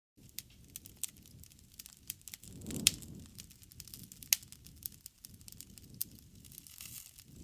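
Wood fire crackling: irregular sharp pops and snaps of burning wood over a low rumble of flames, with two louder pops about three and four and a half seconds in.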